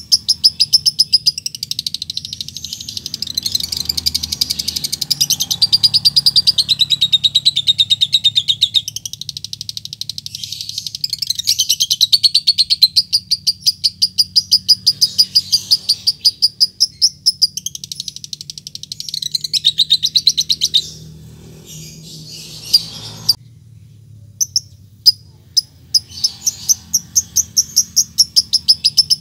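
Fischer's lovebird giving its long, fast chattering call ('ngekek'): rapid high chirps repeated many times a second in unbroken runs. About three quarters through it breaks off to a few single chirps, then the chatter starts again near the end. This is the call a male in breeding condition uses to call out a rival.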